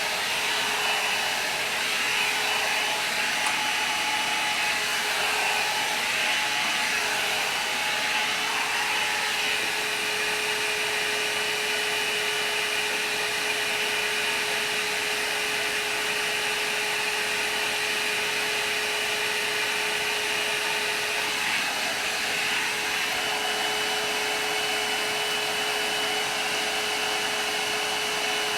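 INGLAM hot-air hair dryer brush running steadily, a constant rush of air with a steady motor whine over it.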